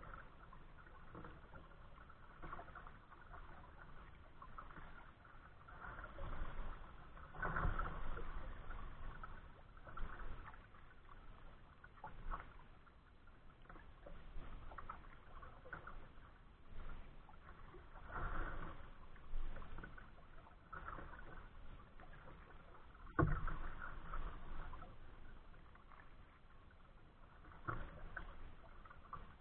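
Water splashing and lapping against a kayak hull with the paddle strokes, in uneven surges every second or two. There is one sharp knock about two-thirds of the way through.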